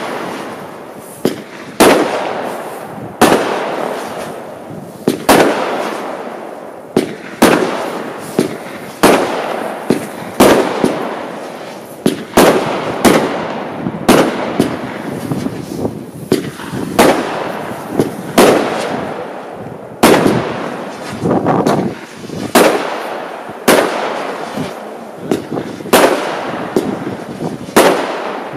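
Lesli Turbo Tvist compound fireworks cake firing shot after shot: a sharp bang roughly every second, now and then two in quick succession, each followed by a fading rush of noise.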